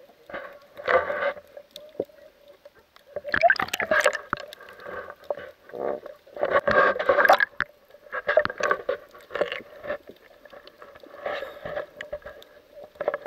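Muffled underwater water noise picked up through an action-camera housing: swishing and gurgling surges every two to three seconds over a faint steady hum.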